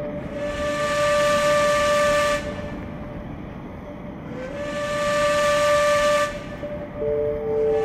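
Long, steady, pitched blasts of a horn or whistle with a breathy hiss over the tone, each about two seconds, repeated with pauses of about two seconds; a second, lower note sounds near the end.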